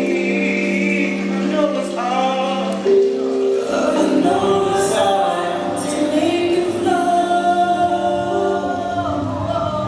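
Live R&B slow jam: several voices holding a sustained harmony, then moving vocal lines over the DJ's backing mix. The bass of the backing track comes in about four seconds in.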